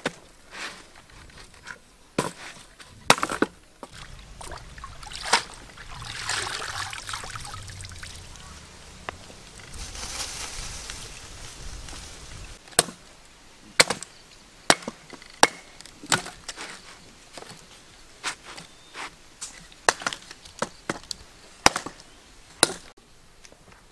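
Small sticks of firewood being chopped and split with a hand blade on a wooden pile: sharp, irregularly spaced chopping strikes, many of them, with a stretch of hissing, rustling noise in the middle.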